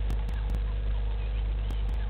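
Outdoor bush ambience through a live-camera microphone: a steady low hum, with a few short bird chirps and scattered sharp clicks.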